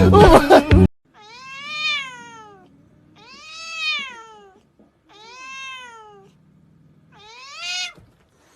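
Music cuts off about a second in. Then a house cat meows four times, each long meow rising and then falling in pitch, with short pauses between them.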